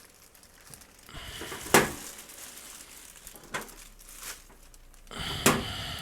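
Plastic bag crinkling as it is pulled off a steel tool box, in two spells, with a few sharp knocks.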